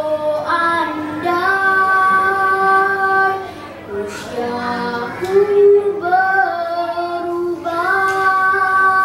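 A young boy singing solo, holding long sustained notes, with a short drop for breath about four seconds in.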